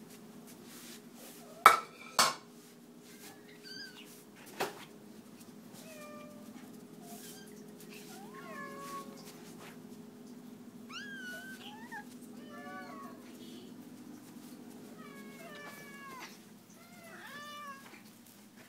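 House cats meowing again and again, short calls that rise and fall, begging at feeding time. Two loud sharp clatters come about two seconds in and a smaller knock a couple of seconds later, all over a steady low hum.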